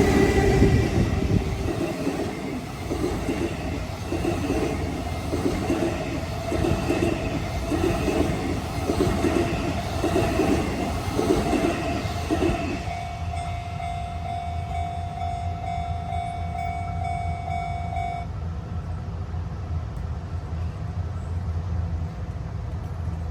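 Towed Tokyo Metro 18000 series subway cars rolling past on rails, their wheels clacking over the rail joints in a regular rhythm. The clatter stops abruptly about 13 seconds in as the last car goes by, leaving a low rumble and a steady tone that cuts off a few seconds later.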